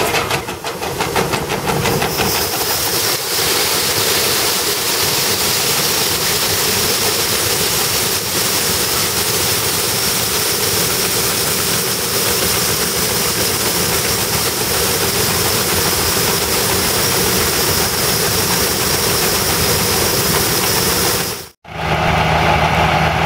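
Hard white wheat pouring from a grain cart's unloading auger into a steel trailer: a steady rushing hiss over a running tractor engine. It cuts off suddenly near the end.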